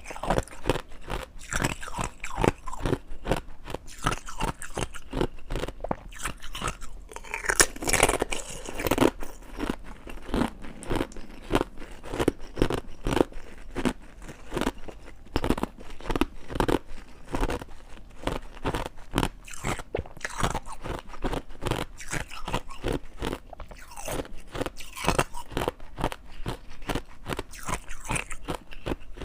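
Ice being bitten and chewed: a steady run of sharp crunches, several a second, with no pauses.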